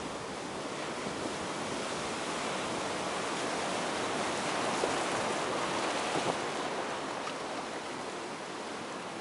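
Heavy ocean surf from a typhoon swell, breaking and washing without a break and growing louder for a few seconds midway.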